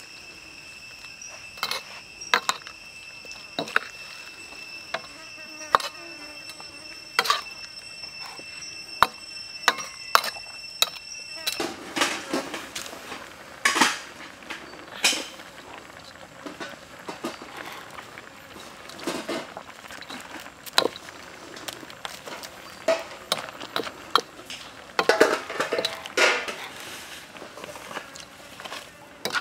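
Metal ladle clinking and scraping against a wok while stir-frying vegetables, in irregular knocks. A steady high-pitched tone runs through the first third and cuts off abruptly.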